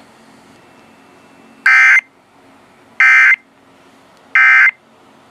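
Three short bursts of Emergency Alert System digital data tones, a warbling two-tone modem chirp, spaced about a second and a half apart: the End of Message code that closes an EAS alert.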